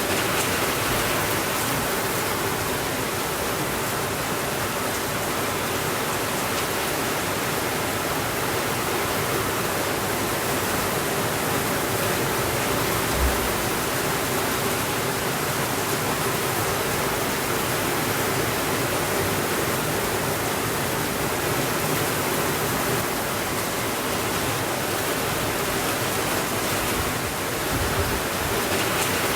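Steady rainfall, an even hiss that does not change, with one brief low thump near the middle.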